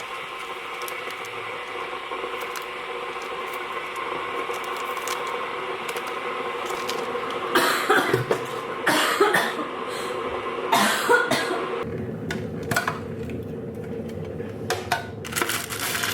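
A person coughing in three short fits about halfway through, the cough of someone ill with a cold, over a steady background hum. Light sharp clicks follow near the end.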